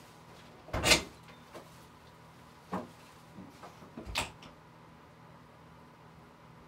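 Three short, sharp knocks or clunks, about one, three and four seconds in, the first the loudest.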